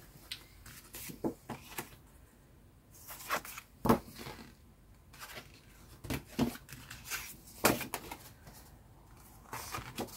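Paper and card pieces being handled and laid down on a work surface: irregular rustles and light taps, a few louder ones about four seconds in and near eight seconds.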